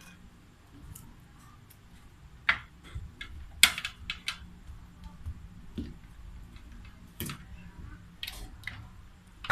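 A series of irregular sharp clicks and taps, a few louder knocks among them, over a low background hum.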